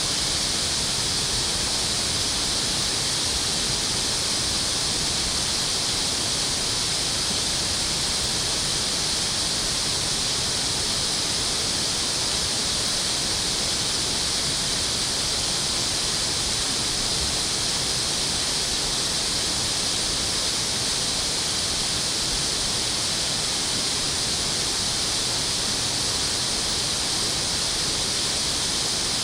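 Water rushing steadily, an even hiss that does not change.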